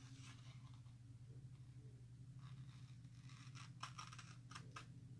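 Near silence over a steady low hum, with faint rustles and light clicks from about halfway on as stencil transfer sheets are handled.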